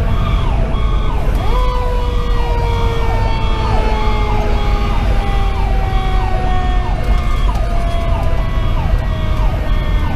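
Fire engine sirens heard from inside the cab. An electronic siren yelps in quick up-and-down sweeps, about two a second. About a second and a half in, a Federal Q2B mechanical siren's long tone comes in and slowly slides down in pitch as it winds down, over the low rumble of the engine's Detroit Series 60 diesel and the road.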